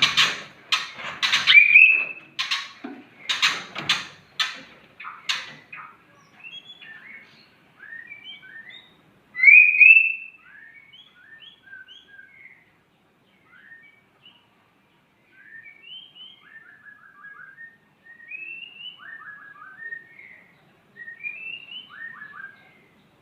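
White-rumped shama (murai batu) singing. It opens with a few seconds of loud, harsh rasping calls, then moves into a long series of varied whistled phrases with sliding notes and quick trills, separated by short pauses.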